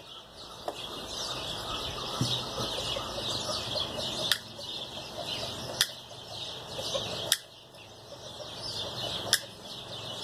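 Hand snips cutting through chicken wire: a sharp metallic snip every one and a half to two seconds, four clear ones in the second half. Chickens clucking and birds chirping go on behind.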